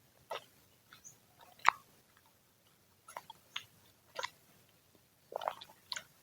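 A person chewing crunchy freshly fried gorengan (battered deep-fried snacks) close to the microphone: scattered crisp crunches and mouth clicks, the loudest about one and a half seconds in and a quick cluster near the end.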